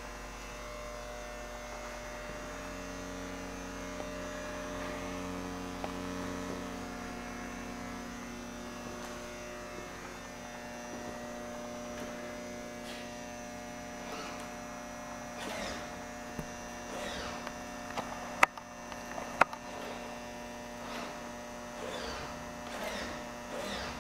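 Steady electrical hum, with two sharp clicks a little past the middle and faint knocks and rustling toward the end.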